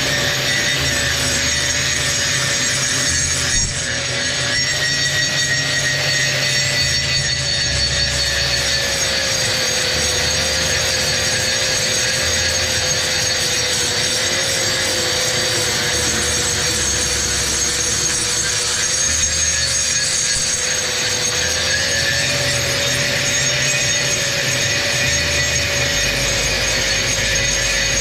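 Electric grinder running continuously, grinding down a concrete floor so the toilet will sit flat. A steady motor whine that wavers slightly in pitch under a coarse scraping noise, with a brief dip about four seconds in.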